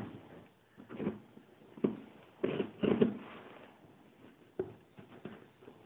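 Small scissors cutting the packing tape on a cardboard box: a few irregular short snips, crunches and knocks, the loudest pair about two and a half to three seconds in.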